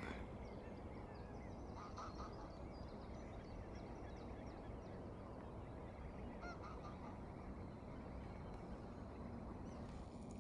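A flock of greylag geese honking faintly, in scattered calls that cluster about two seconds in and again around six and a half seconds in, over a steady low background hum.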